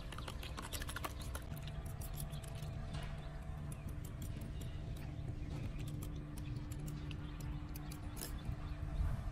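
Knife blade stirring a frothy liquid in a plastic cup, making many light, irregular clicks and taps over a steady low background rumble.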